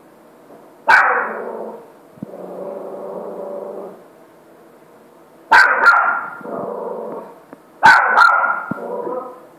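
A dog barks three times, about a second in, midway and near the end, and each bark trails off into a lower, drawn-out grumbling sound.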